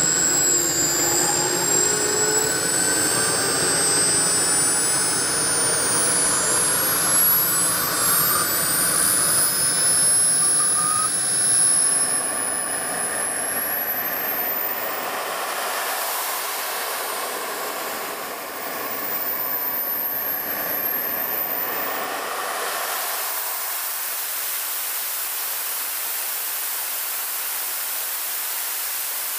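Four Wren Super Sport micro gas turbines whining, several high tones rising in pitch over the first twelve seconds or so as they spool up. About halfway through the low rumble drops away, leaving a high whine and then a steady hiss.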